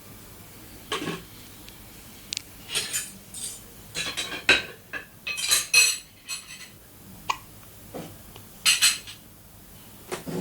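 Irregular clinks and clatter of small hard objects knocked together, like dishes or utensils being handled, some with a short ringing tone; busiest in the middle and again near the end.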